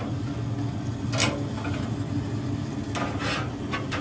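Metal tongs scraping and clinking against the expanded-metal grates inside a pellet smoker, a few short strokes about a second in, near three seconds and just before the end, over a steady low hum.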